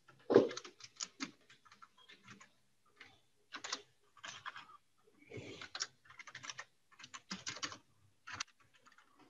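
Computer keyboard typing: irregular runs of keystrokes, with one heavier thump about half a second in.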